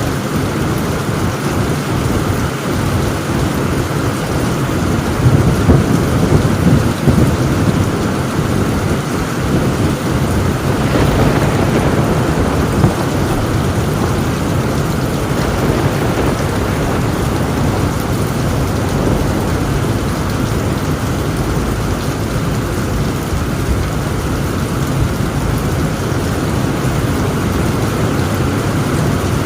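Heavy rain falling steadily on a tin roof, with thunder rumbling low and loudest about five to seven seconds in.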